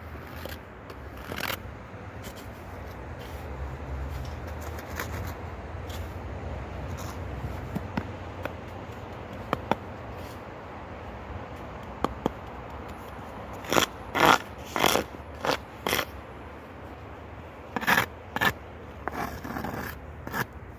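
Continuous scraping noise with a low rumble underneath in the first few seconds. In the last third come a run of short, sharp, louder scrapes, bunched together and then twice more near the end.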